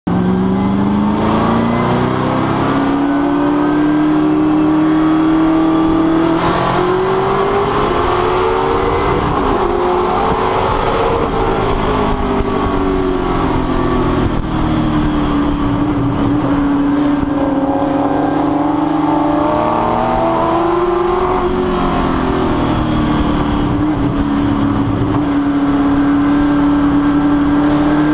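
Ford Mustang Trans-Am race car's V8 engine at racing speed, heard from inside the cabin. Its pitch climbs over the first few seconds, holds high for long stretches, and falls and rises again a few times as the car slows for corners and accelerates out.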